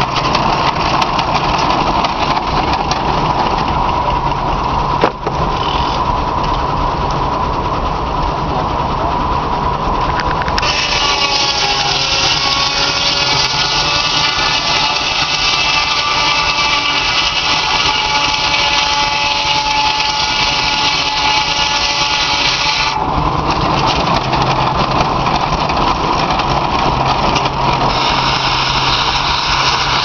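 Belsaw circular sawmill blade, driven by a Frick steam engine, spinning with a steady hum. About ten seconds in it bites into a log and the sound turns brighter, with a hissing rasp and several ringing tones. Near the three-quarter mark the cut ends and the blade spins free again.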